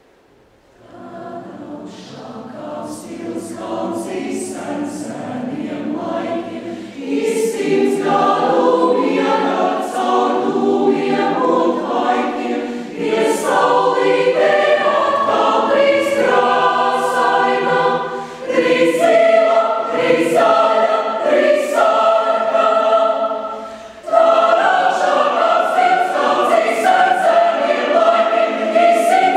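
Mixed choir of men and women singing a Latvian choral song. The choir comes in softly about a second in over a low held note, then swells fuller and louder from about seven seconds, with short breaths between phrases.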